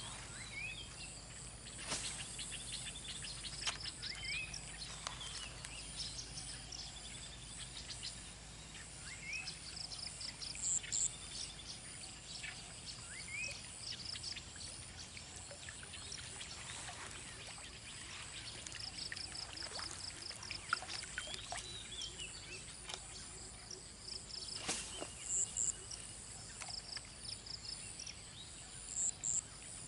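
Rural waterside ambience: insects chirping in repeated pulsed bursts and birds giving short chirps, with a few sharp clicks or knocks now and then.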